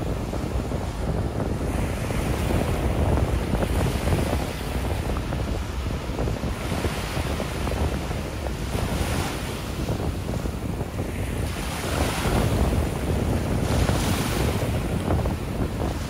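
Ocean surf breaking and washing up the shore, its hiss swelling and easing every few seconds, over a steady low rumble of wind buffeting the microphone.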